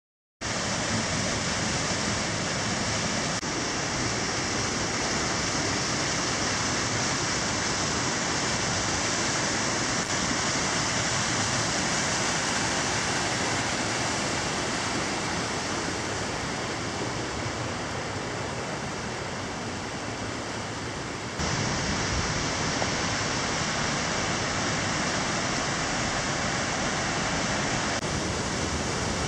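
Mountain stream and waterfall water rushing over rock in a narrow gorge: a steady, even rush of water that steps up slightly in loudness about three-quarters of the way through.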